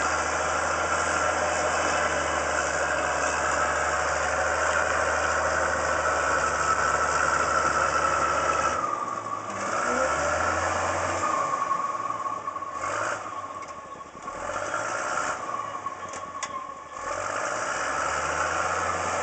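Caterpillar D5 dozer's diesel engine running under load. It holds steady for the first nine seconds, then its note falls and picks up again several times as the work load changes, before settling near the end.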